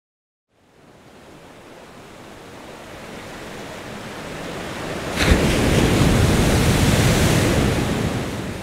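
A rushing noise swells up out of silence and grows steadily louder. A sharp hit comes about five seconds in, and the noise eases off near the end.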